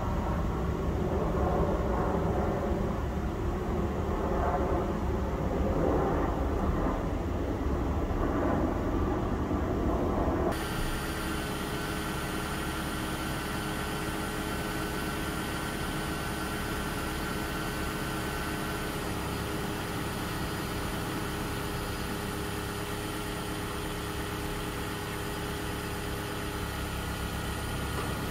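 Steady hum of an idling car engine. About ten seconds in the sound cuts abruptly to a thinner, even hum with faint steady whining tones.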